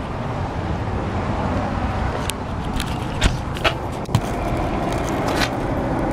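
Wind rumbling on the microphone, with several sharp clicks and knocks from about two seconds in, the sounds of a handheld camera being moved and bumped.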